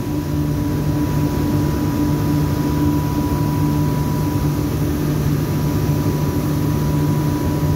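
Steady industrial machinery hum: a constant low drone with a thin, unchanging high tone above it.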